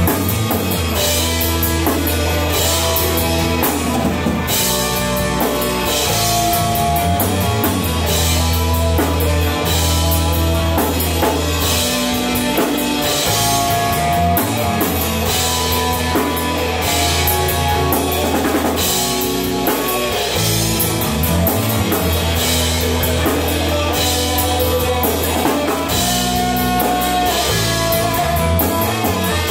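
A rock band playing live: a drum kit with regular cymbal crashes over amplified electric guitars and sustained low notes, at a steady loud level.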